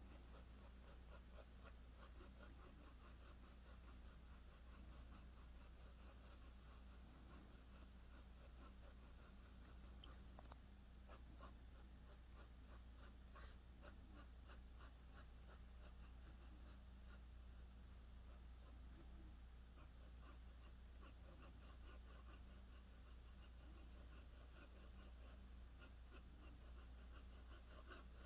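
Faint graphite pencil scratching on paper: many quick, short shading strokes in a steady run, as the hair is filled in tone by tone.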